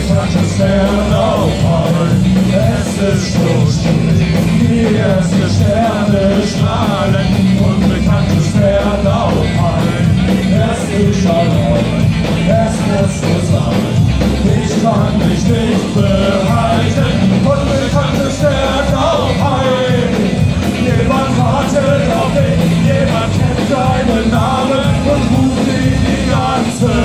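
Ska-punk band playing live at full volume in a concert hall: an instrumental passage with horns carrying the melody over drums, bass and guitar.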